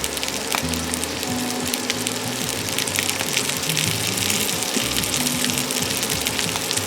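Pork sausages sizzling and crackling in a frying pan as they brown, over background music with a slow bass line.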